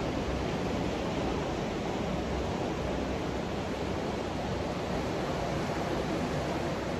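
Ocean surf breaking on a sandy beach, heard as a steady, even rushing wash with no single wave standing out.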